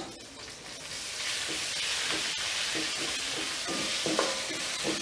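Sliced onions and curry leaves sizzling in hot oil in a kadai, the sizzle swelling about a second in and then holding steady, with a metal spatula scraping the pan now and then as they are stirred.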